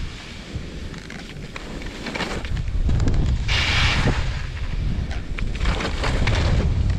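Wind buffeting the action camera's microphone as a skier runs down a groomed piste, with skis hissing over the snow. A louder scrape of the ski edges comes about three and a half seconds in, during a turn.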